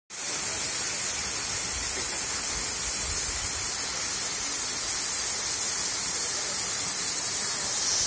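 Waterfall: thin streams of water falling down a rock face and splashing, a steady hiss of falling water and spray.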